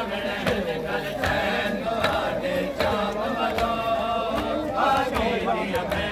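A crowd of men chanting a Shia noha in unison, with a steady beat of hands striking chests (matam) a little faster than once a second.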